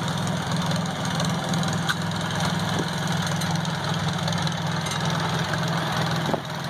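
Small 1941 Shaw R12 garden tractor's engine running steadily as the tractor drives slowly past.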